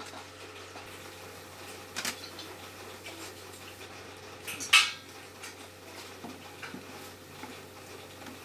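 Scattered clinks of metal parts being handled, with one loud sharp clank about halfway through, over a steady low hum.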